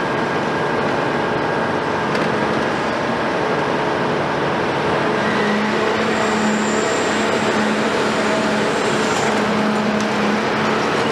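Cat 374 long-front demolition excavator with its Cat C15 diesel engine running under working load: a loud, steady machine noise, with a humming tone that comes and goes from about halfway through.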